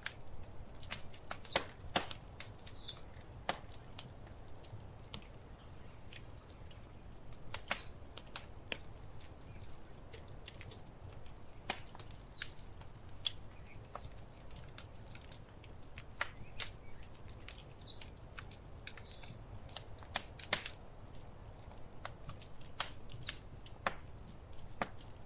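Wood fire crackling in a fireplace: irregular sharp snaps and pops, several a second, over a faint steady low rumble.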